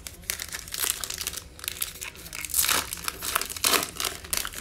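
Foil trading-card pack wrapper crinkling as it is torn open by hand and the cards are pulled out, with the loudest crackles about halfway through and again near the end.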